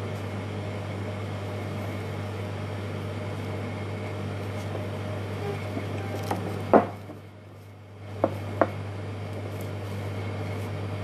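Steady low machine hum in a room, with three short knocks around the middle, likely the vase being handled on the wooden table.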